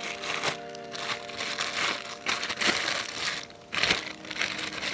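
Clear plastic packaging bag crinkling and rustling in several bouts as it is handled and opened.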